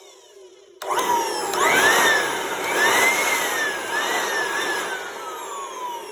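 Corded electric leaf blower switched on about a second in, its motor whine and rush of air rising and dipping in speed a few times, then winding down with a steadily falling whine.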